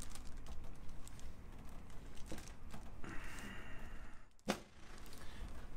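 Light scattered clicks and rustling from hands working on a patient on a chiropractic table, with one sharp crack about four and a half seconds in.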